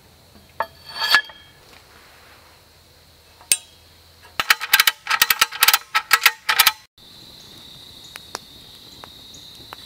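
Metal clinks from hammock-stand tubes and a carabiner being handled: a few sharp knocks about a second in, another at three and a half seconds, then a quick run of ringing clinks lasting about two seconds. After that it cuts to a steady high chirping of insects.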